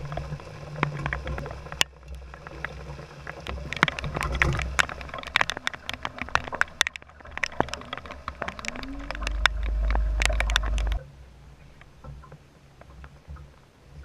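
Rain with wind buffeting the microphone and many sharp ticks of drops striking close by. The wind rumble drops away suddenly about eleven seconds in, leaving fainter rain and scattered ticks.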